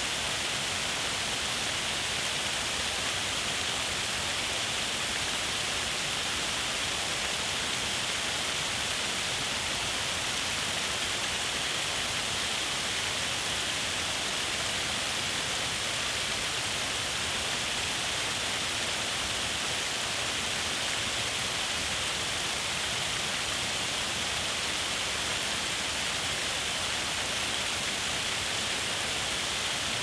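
A small waterfall, creek water spilling over a rock ledge, making a steady rushing hiss. The sound is bright and high with little low rumble, and it does not change.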